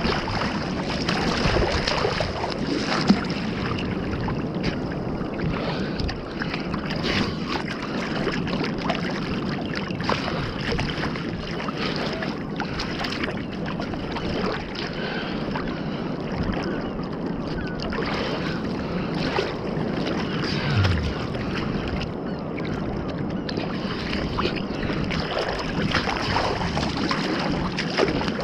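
Sea water sloshing and lapping around a camera bobbing at the surface, with many small splashes and gurgles close to the microphone.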